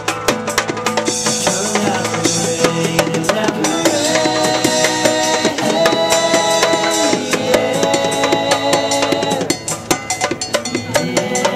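Drum kit played in a busy, steady beat, over music with held melodic notes.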